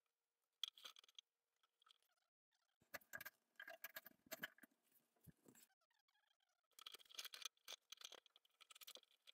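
Faint scratching, clicking and rustling of a plastic barbed hair snake being worked through a bathroom sink drain to pull out hair, with glove rustle, in three short spells.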